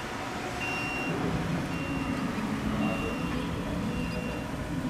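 A vehicle's reversing alarm beeping at one steady high pitch, about once a second (four beeps), over a low rumble.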